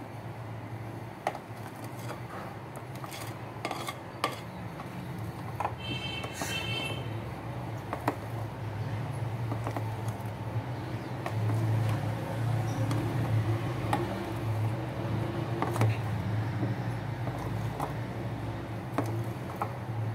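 Metal spoon stirring thick cocoa cake batter in a glass bowl, clinking and scraping against the glass at irregular intervals, over a steady low hum. A brief high-pitched sound comes about six seconds in.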